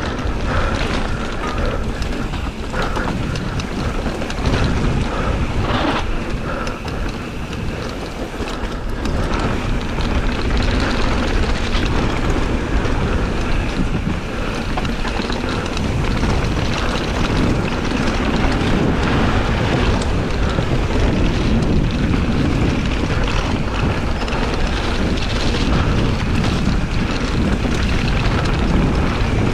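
Wind rushing over an action camera's microphone and mountain-bike tyres rolling fast over packed dirt and small rocks, with the bike rattling and knocking over the bumps. The noise gets a little louder about a third of the way in.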